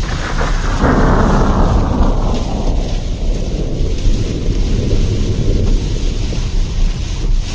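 Typhoon storm sound: heavy rain and strong wind in a dense, continuous rush with a deep rumble underneath. A faint whistle falls slowly in pitch over the first three seconds.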